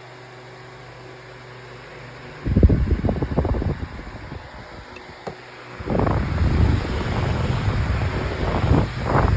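Five-bladed 12-inch metal table fan running on its high setting with a steady motor hum. About two and a half seconds in, and again from about six seconds on, its air stream buffets the microphone with a loud, low, gusty rumble.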